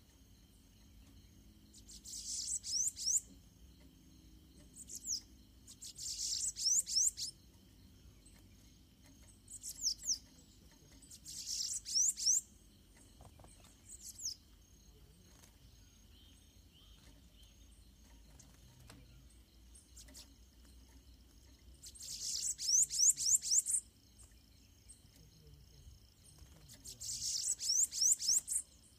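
Bananaquits singing in repeated short bursts of rapid, very high, wheezy trills, a caged male and a wild one counter-singing in a territorial dispute.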